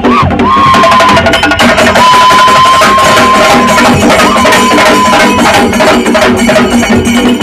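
Kerala chenda drums beaten fast and loud with curved sticks, with small hand cymbals clashing along. A high, held whistle-like tone sounds three times over the drumming.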